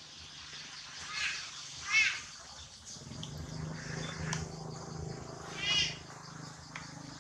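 Baby macaque crying: three short, high-pitched squeals about one, two and six seconds in, the second the loudest, as a mother weans it. A steady low hum runs underneath from about three seconds in.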